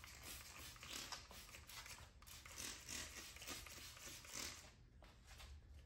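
Faint scratchy rubbing of a 2000-grit sanding disc on a foam applicator pad, wet-sanding a plastic headlight lens in straight back-and-forth strokes. It eases off about three-quarters of the way through.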